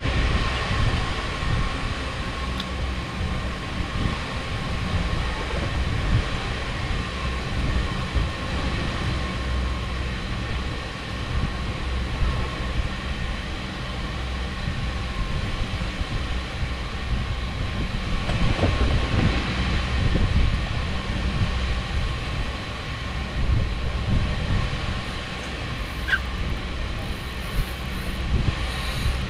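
Steady low mechanical rumble with a thin steady whine, rising and falling a little in loudness.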